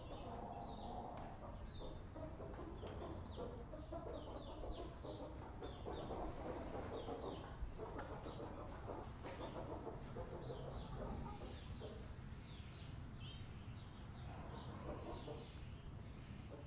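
Chicks peeping over and over in short, high calls, with a hen's low clucking beneath.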